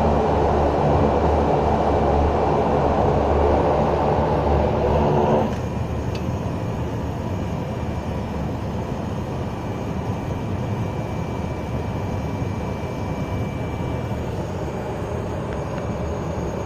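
Single Pratt & Whitney PT6A turboprop engine and propeller of a Cessna Grand Caravan EX, heard from inside the cockpit during the landing rollout. It runs loud for about five seconds, then drops abruptly to a quieter, steady idle with a faint high whine.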